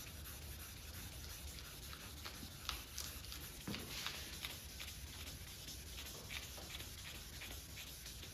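Faint rubbing strokes of a hand sanding block with 1,000-grit wet sanding paper on wet clear coat, going back and forth in changing directions with light pressure. It is wet sanding that levels a dirt nib out of the clear.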